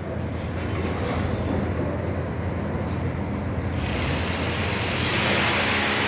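Steady machine noise with a low hum, joined about four seconds in by a louder hiss and a steady drone, like a blower or motor running up.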